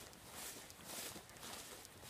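Footsteps through tall grass, the stalks brushing and swishing against the legs with each stride, about two soft swishes a second.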